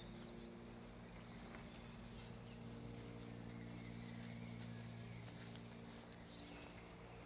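Quiet forest ambience: a faint steady hiss with a low hum underneath, and a few faint high chirps.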